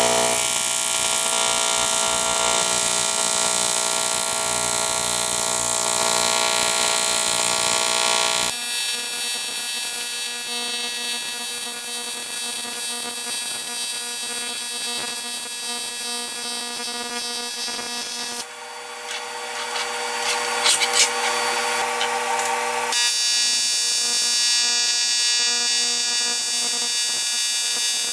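AC TIG welding arc on aluminum sheet, a steady electric buzz. The buzz changes abruptly a few times, and a brief crackle comes about twenty seconds in.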